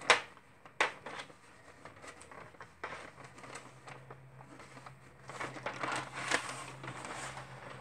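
Light rustling and ticking of picture-hanging wire being twisted around itself by hand against a frame's paper backing, with two sharp clicks in the first second.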